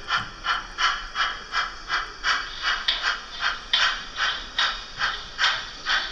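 Märklin H0 model of a DSB class E steam locomotive running, its built-in sound decoder playing an even beat of steam exhaust chuffs, nearly three a second, through the model's small loudspeaker.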